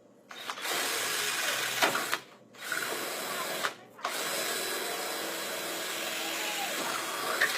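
Power drill boring holes through a vinyl shutter, running in three spells: two short ones with brief stops between, then a longer run of about three and a half seconds.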